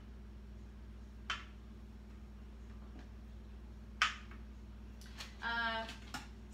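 Two sharp single knocks, about a second in and about four seconds in, as food and utensils are handled on a kitchen counter during smoothie prep, over a steady low hum. A short bit of a woman's voice comes near the end.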